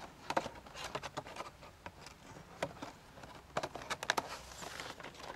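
Cardboard model-train box and plastic sleeve rustling and scraping as the inner box is slid into its outer cardboard sleeve, with scattered light clicks and taps.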